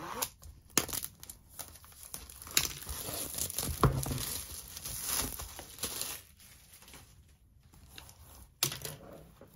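Clear plastic film wrapping a cardboard box being slit with a utility knife, then torn and crinkled as it is pulled off, with a few sharp clicks near the start. The crinkling is loudest through the middle, with a single knock about four seconds in, and dies down to lighter handling of the box near the end.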